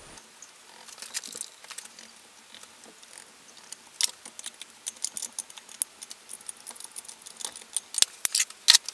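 Irregular small metallic clicks and taps of tools and engine parts being handled on an aluminium cylinder head, sparse at first and coming thick and fast from about halfway through.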